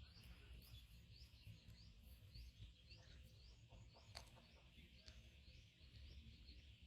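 Faint chirping of a small bird: short, rising notes repeated about twice a second, over a low background rumble.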